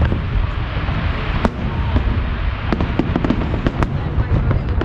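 Fireworks display going off: a continuous low rumble of shell bursts with many sharp cracks and pops scattered through it.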